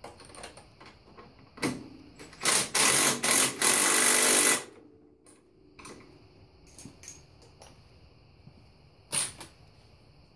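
Handheld power tool running at speed in quick bursts, the longest about two to four and a half seconds in and a short one near the end, running bolts down on an ATV's front end. Light metal clicks and clinks between the bursts.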